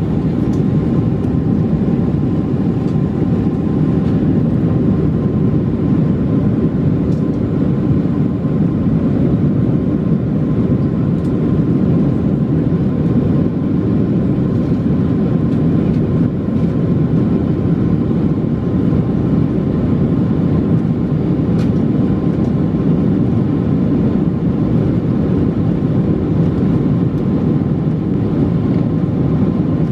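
Steady cabin noise inside a Boeing 747-436 airliner, its Rolls-Royce RB211 engines running evenly, with a faint steady whine over a deep, loud rush.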